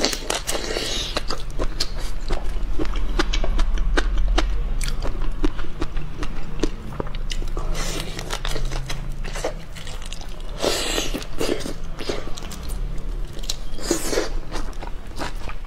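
Close-miked biting and chewing of whole raw soy-sauce-marinated shrimp: the shells crunch in many sharp clicks, with a few longer wet bursts now and then.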